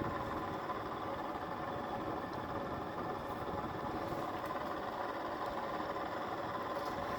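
Casablanca Delta II ceiling fan running steadily on high, a continuous hum with bearing noise from its motor. The bearings are worn and noisy though still free-turning.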